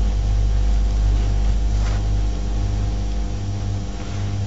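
Steady low electrical hum with a faint hiss, typical of mains hum on an old recording. There is a faint brief scratch about two seconds in.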